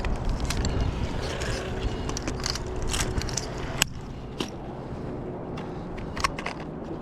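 Rustling and rubbing of clothing and harness against a chest-mounted camera as a climber moves across a ropes-course element, with scattered clicks and knocks, the sharpest a little before four seconds in.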